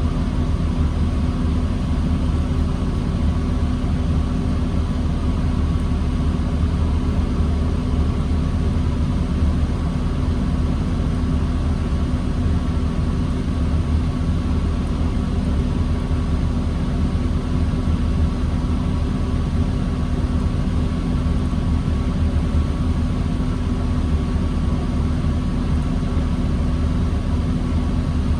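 A 2009 New Flyer D40LFR diesel transit bus engine running steadily at low, unchanging speed, with a constant drone and no revving.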